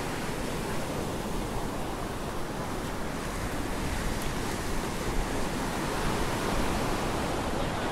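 Ocean surf washing onto a sandy beach, a steady rush of breaking waves, with wind blowing across the microphone.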